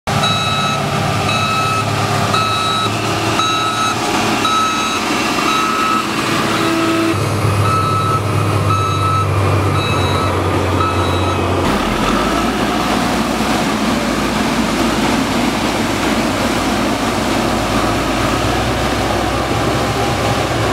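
Reversing alarm on heavy road-construction machinery beeping about twice a second over a running diesel engine. The beeping stops about twelve seconds in, leaving the engine running steadily.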